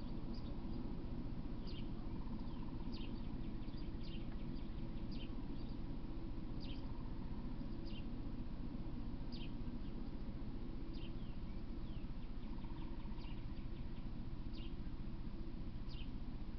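A bird calling with short, high chirps that slide downward, repeated irregularly about once a second, over a steady low hum.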